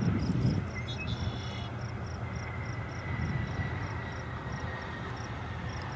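Bombardier CRJ regional jet's twin rear-mounted turbofans heard across the airfield as it rolls along the runway: a steady low rumble, heaviest in the first half second, with a faint high whine. Faint short high chirps repeat about three times a second throughout.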